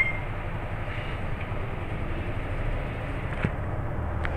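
Steady low hum of a MAN NL323F low-floor bus's engine and running gear, heard from inside the passenger cabin, with a couple of faint clicks near the end.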